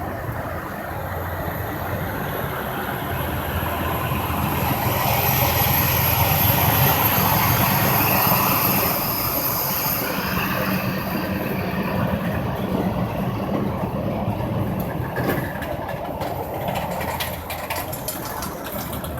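Heavy truck engine running with road and tyre noise at highway speed, getting louder from about four seconds in and easing back about nine seconds in. A run of light clicks and rattles comes in the last few seconds.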